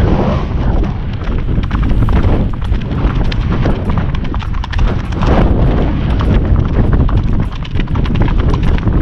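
Horses' hooves on a gravel track, a rapid stream of crunching clicks, under a heavy rumble of wind buffeting the helmet camera's microphone.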